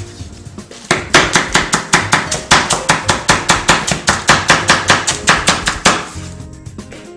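Chef's knife rapidly chopping napa cabbage on a wooden cutting board, in quick even strokes of about seven a second. The chopping starts about a second in and stops near the end, with soft background music underneath.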